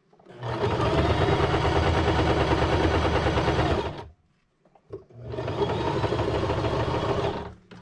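Electric sewing machine stitching fabric strips together in two runs, about three and a half seconds and then two and a half seconds, the needle going at a fast, even rhythm. A short click falls in the pause between the runs.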